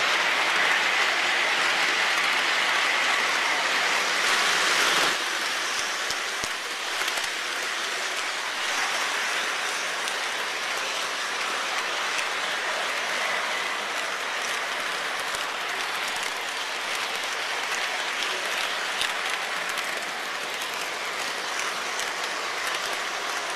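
Clapping and cheering for about the first five seconds, cutting off suddenly, then the steady rolling clatter of O-gauge three-rail model trains running on the track.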